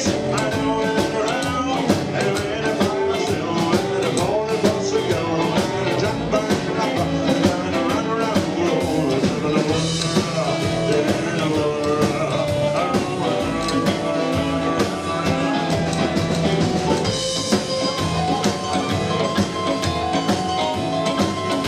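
Live rock and roll band playing with electric guitar, keyboard, bass and a drum kit keeping a steady, driving beat.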